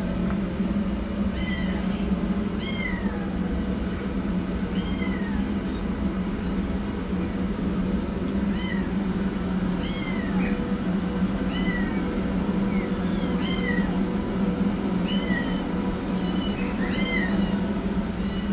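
Kittens mewing over and over, short high-pitched mews that rise and fall, about one a second, over a steady low hum.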